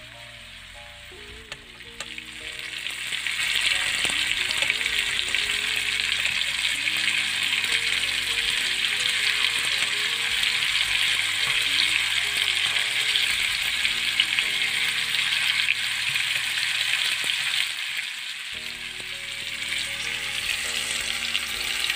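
Marinated chicken tikka pieces sizzling steadily as they fry in oil in a pan, the sizzle growing louder about two to three seconds in.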